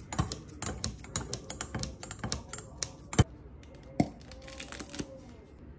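Kitchen scissors snipping chipotle peppers in a glass measuring cup: quick repeated clicks of the blades for about three seconds, with one sharp knock against the glass. About four seconds in there is another knock, then a short run of softer clicks as a mayonnaise bottle is squeezed into the cup.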